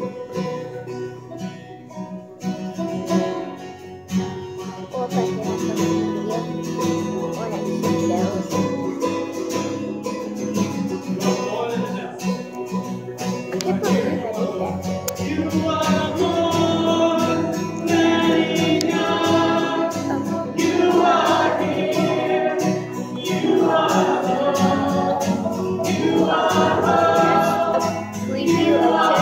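Music: a song with guitar, joined by group singing that grows stronger about halfway through.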